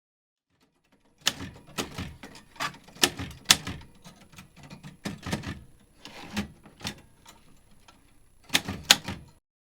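A series of irregular sharp clicking strikes, about fifteen in all with uneven gaps, ending in a close pair about nine seconds in.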